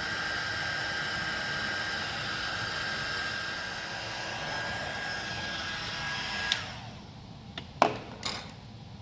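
Electric heat gun blowing steadily while shrinking heat-shrink tubing over a crimped battery-cable connector. It is switched off about six and a half seconds in, its motor whine falling as the fan spins down, and a couple of sharp knocks follow.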